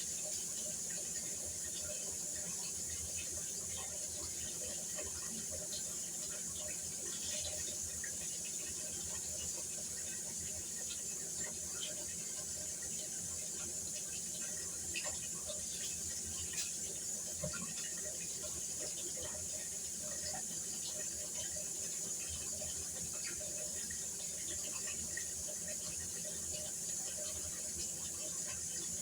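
Kitchen tap running steadily into a sink, with a few faint clicks over it.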